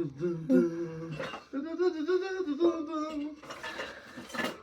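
A person humming a tune in a small room, in held notes that move up and down, lower at first and then higher and stronger, breaking off a little after three seconds. A short sharp noise follows near the end.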